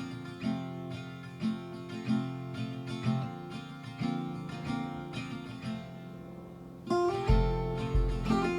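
Background music: a gentle acoustic guitar track with plucked and strummed chords. About seven seconds in, a fuller section comes in with a steady low bass beat.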